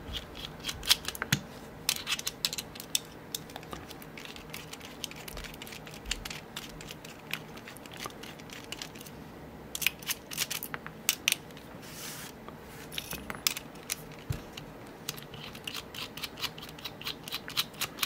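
Precision screwdriver turning the bolts out of a steel Master Lock 187XD padlock body: light metallic clicks and scrapes in bunches, with quieter stretches between.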